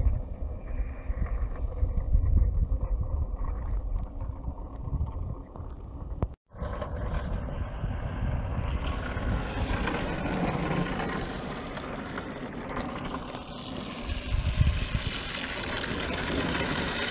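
Wind buffeting the microphone for the first few seconds; after a brief cut, a steady hiss that swells near the end as an ice windsurfing board glides close by, its runners scraping across the ice.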